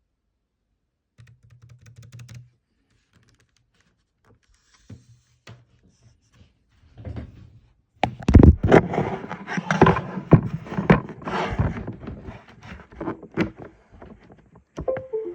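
Keychron B6 Pro keyboard's keys being pressed and the keyboard handled. It starts quiet, then about halfway through a loud, dense run of clicks and thunks lasts several seconds.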